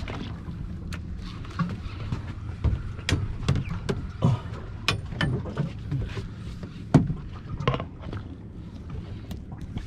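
Fishing reel being cranked on a hooked fish: irregular mechanical clicks and knocks over a steady low rumble.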